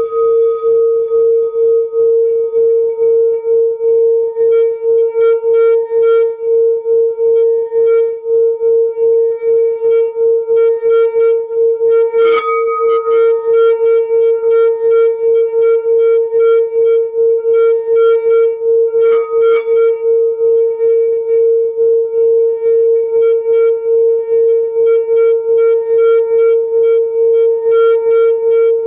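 Singing bowl sounding one long, steady, pulsing ring, with a wobbling beat a few times a second. It is struck again about twelve seconds in and about nineteen seconds in, each strike brightening the upper tones.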